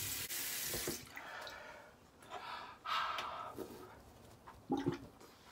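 Bathroom sink tap running, shut off about a second in; then water dripping and a few short breathy sounds while the face is wet from rinsing.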